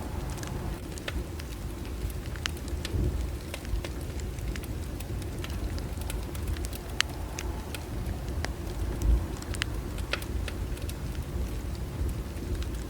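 Bonfire burning: burning wood crackling, with scattered sharp pops, several a second and irregular, over a steady low rumble of the flames.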